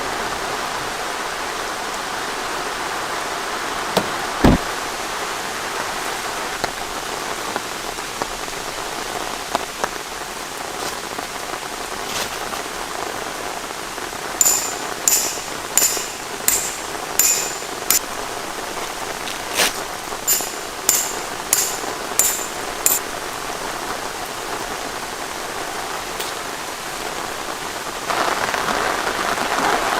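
Steady rain falling. Partway through comes a run of about a dozen sharp ticks, roughly one and a half a second, like drops striking something hard, and earlier a single dull knock.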